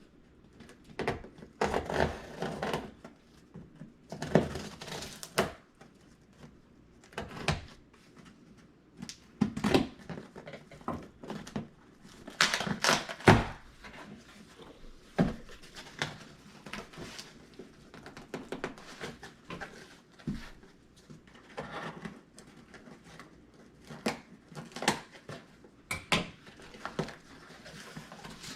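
Cardboard shipping box being opened by hand: packing tape pulled and torn at, with cardboard rustling and knocking in irregular bursts and a few sharp knocks.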